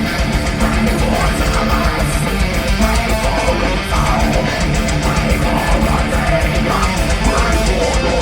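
Heavy metal band playing live at full volume: distorted electric guitars and bass over a steady drum beat.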